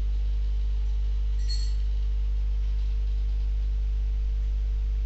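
Steady electrical hum with its overtones on the recording, and one brief, faint, high clink about a second and a half in.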